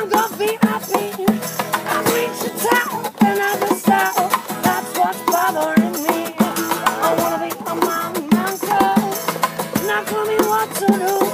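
Music with a busy rattling shaker beat under a melody whose notes slide and waver.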